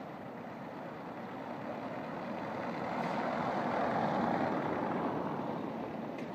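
A car passing close by on a cobblestone road, its tyre noise swelling to a peak about four seconds in and then fading as it drives away.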